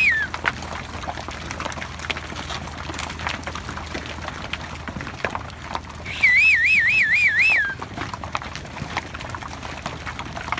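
A warbling whistle, its pitch wobbling about five times a second, sounds for about a second and a half some six seconds in and ends in a short falling slide. It is a rider's whistle to drive cattle. Faint scattered knocks and shuffling lie underneath.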